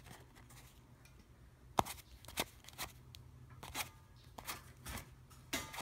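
Blue-backed Bicycle playing cards being handled: a scattering of sharp clicks and snaps, about six, as the deck is spread through and split into two packets, over a faint low hum.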